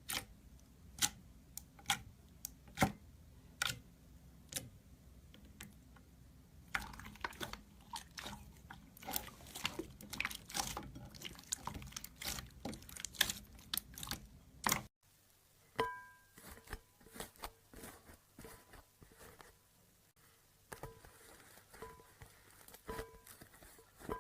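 Slime being squished and poked by hand: sharp clicking pops, thickening into dense crackling, then cutting off suddenly about halfway through to quieter clicks.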